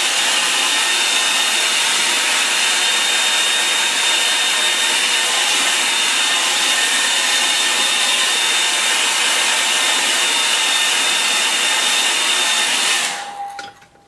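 Hand-held hair dryer blowing on wet watercolour paper: a loud, steady rush of air with a faint high whine, switched off about a second before the end.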